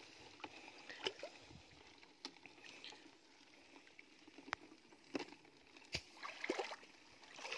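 Faint rustling and crackling of wet weeds and dry stems being picked through by a gloved hand in a plastic basket, with a few sharp snaps or clicks scattered through.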